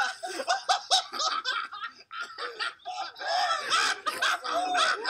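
People laughing hard in quick repeated bursts, mixed with the retching and gagging of someone vomiting up milk.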